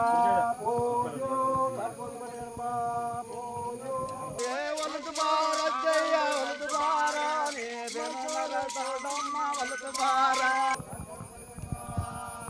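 Group of men chanting a devotional song together. From about four seconds in until nearly eleven seconds, it gives way abruptly to another song with sharp rhythmic clicks, about two and a half a second; then the group chanting comes back.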